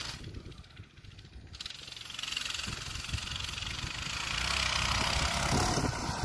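Coleman BT200X minibike's small single-cylinder engine running as the bike rides closer, growing steadily louder and loudest near the end as it passes close by.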